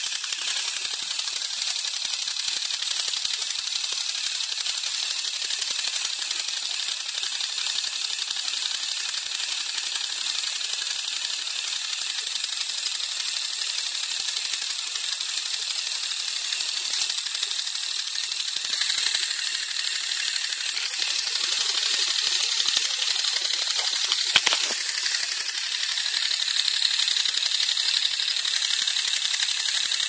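Lego Technic pneumatic compressor driven by a Power Functions large motor, running steadily with a high mechanical rattle. There is a single sharp click about two-thirds of the way through.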